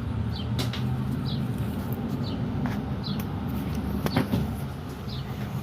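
Steady low background hum, with short high chirps repeating about every half second to second, typical of a small bird calling, and a few sharp clicks, the loudest about four seconds in.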